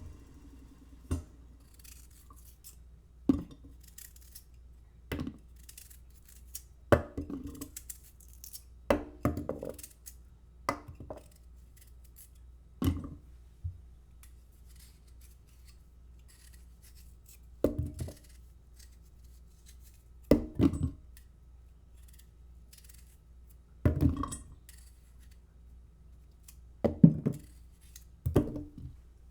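Garbage disposal with hard bits clinking and rattling against its metal chamber: short, sharp clinks come at irregular intervals, a second to a few seconds apart, over a faint low hum.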